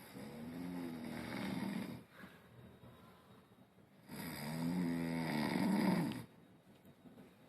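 A sleeping person snoring: two long snores of about two seconds each, the second starting about four seconds in.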